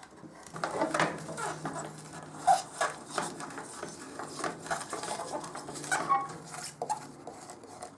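Hands handling a motorcycle's plastic side panel and its small screws: scattered clicks, light clinks and rustling, over a faint steady hum.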